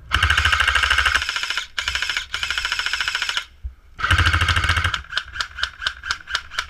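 Magpul PDR electric airsoft gun firing on full auto in three long rattling bursts, then a run of quieter, evenly spaced single shots about four a second.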